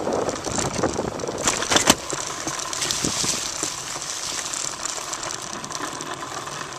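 Turner recumbent bicycle rolling over asphalt: steady tyre hiss with a rattle from the bike's frame and drivetrain, and a few sharp knocks between one and two seconds in.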